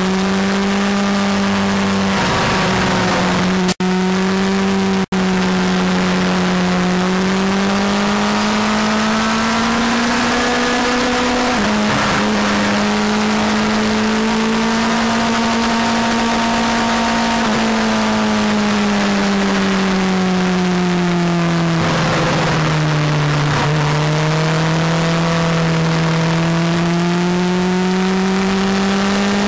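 Suzuki GSX-R motorcycle engine under way at a steady road speed, heard from the bike itself: one strong engine note that slowly rises and falls with the throttle, with a few quick steps in pitch from gear changes, over a steady rush of wind on the microphone. The sound cuts out twice, very briefly, early on.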